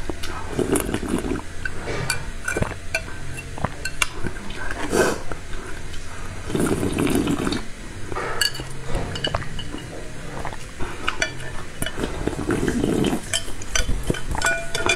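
Slurping and sipping spicy chili sauce from the rim of a bowl, three longer slurps about six seconds apart, with chopsticks clicking and scraping against the bowl in between.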